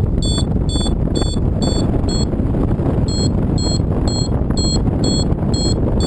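Paragliding variometer beeping in short high tones about twice a second, pausing briefly about two seconds in; steady beeping like this signals that the glider is climbing in ridge lift. Strong wind rushes over the microphone throughout, louder than the beeps.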